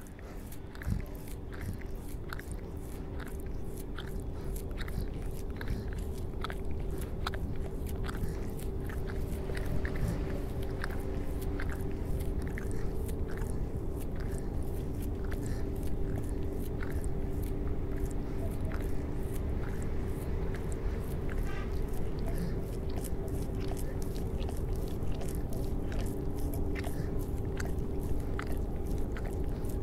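A dog gnawing and nibbling at its own paw: a run of irregular small clicks and crunches, roughly two a second, over a steady low hum. It grows louder over the first several seconds.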